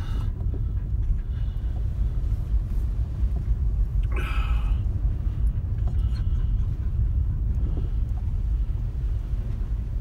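Car driving slowly over a snow-covered road, heard from inside the cabin: a steady low rumble of engine and tyres. A brief, higher-pitched sound comes about four seconds in.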